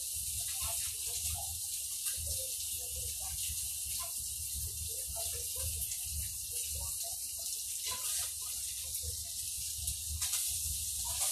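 Pieces of fish frying in oil in a wok on a gas burner: a steady sizzling hiss with scattered small pops and crackles over a low hum.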